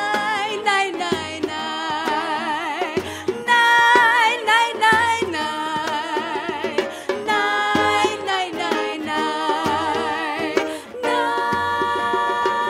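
A recorded song: a woman sings a drawn-out 'nay, nay, nay, nay' refrain with wide vibrato over strummed strings and light percussion.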